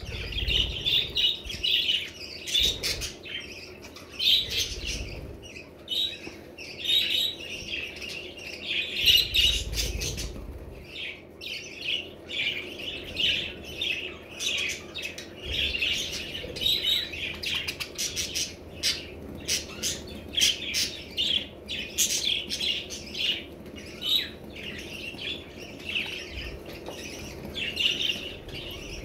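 Several budgerigars chattering, with a continuous stream of short chirps, warbles and squawks. A few low bumps come near the start, about four seconds in and about nine seconds in.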